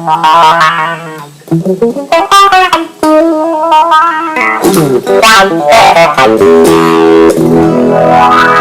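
Clean electric guitar played through a Dunlop Cry Baby 535Q wah pedal with a Clarostat pot, set to its fourth range mode: picked notes and chords with the wah filter sweeping up and down. Near the end, a held chord is swept upward.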